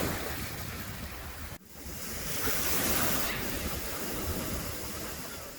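Steady rushing of water, a full even roar. It breaks off for a moment about a second and a half in, then resumes and fades near the end.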